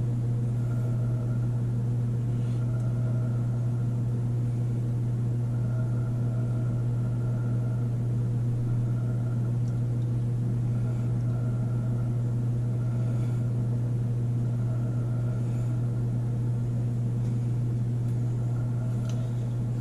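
Steady low mechanical hum, unchanging, with no other sound standing out.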